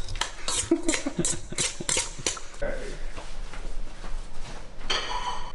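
Metal spoon clinking and scraping against a stainless steel mixing bowl as a corn relish is tossed. There is a quick run of clinks through the first two seconds or so, then it turns quieter.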